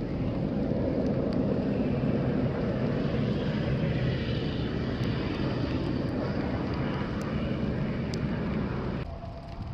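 Plow truck driving past with its engine running as the front plow blade pushes and sprays slush off the road: a steady rumble and rush that drops away sharply near the end.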